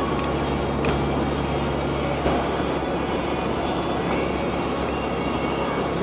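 Car driving along a snow-covered road, heard from inside the cabin: steady engine hum and tyre noise, with a few light clicks.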